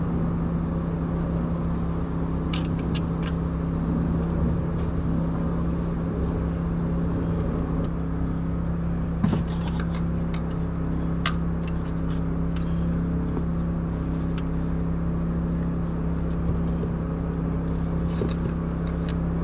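A steady low mechanical hum runs throughout, with a few short sharp clicks and knocks from hand tools working at a stuck oil filter.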